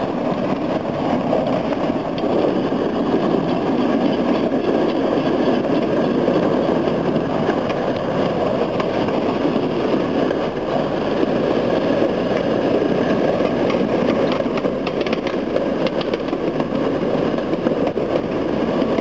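A road vehicle driving along at steady low speed: engine and tyre noise heard from inside it.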